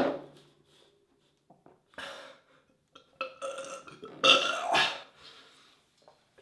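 A man belching loudly right at the start, a low, drawn-out burp that fades over about a second. It is followed by several shorter sounds about two, three and four seconds in, the one near four seconds the loudest.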